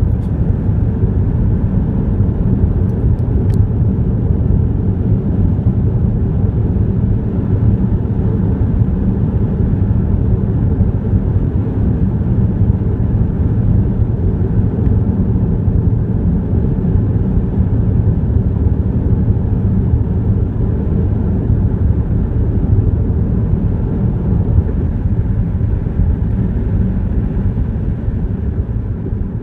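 A steady low rumble with a faint hum in it, like a vehicle engine running, fading toward the end.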